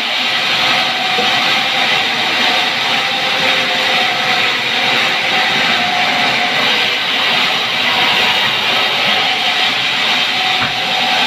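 Band sawmill running and sawing pine logs fed by hand: a loud, steady saw noise with no breaks.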